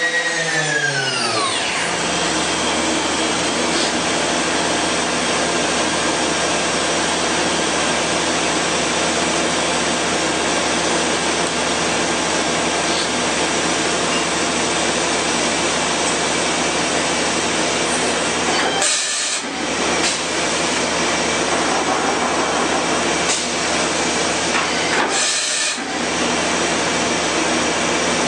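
Mazak 510C vertical machining center running: a motor's whine falls in pitch and dies away in the first second or two, then a steady mechanical hiss and hum carries on. The low hum drops out briefly twice, near 19 and 25 seconds in.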